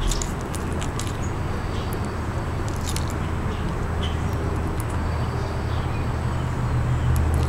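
Green iguana biting and tearing at a hand-held collard green leaf: a few scattered crisp crunches, over a steady low rumble in the background.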